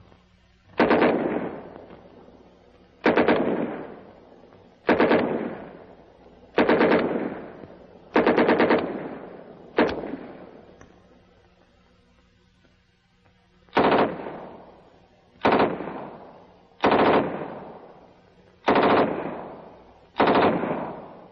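World War II submachine guns, the German MP-40 and the US Thompson .45 and M3, firing short full-automatic bursts. Eleven bursts, each under a second and followed by a trailing echo, come in two runs with a pause of about four seconds in the middle.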